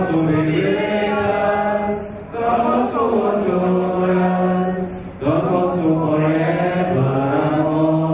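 A man's voice chanting a sung prayer into a microphone, amplified over a PA. It comes in three long held phrases, each about two to three seconds, with gliding pitch and brief breaths between them.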